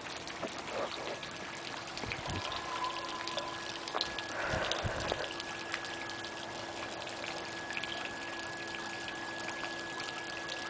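Steady rain falling and dripping, with a faint steady hum underneath.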